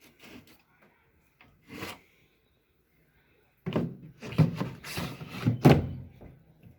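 Handling noise: knocks and scraping of parts being moved, a soft knock just before two seconds in, then a busy cluster of knocks and rubbing from about four to six and a half seconds in.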